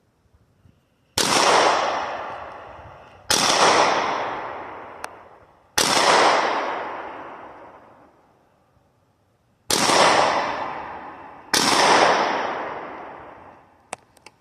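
Five single shots from a 9mm pistol, fired at uneven intervals, each followed by a long echo that dies away over about two seconds.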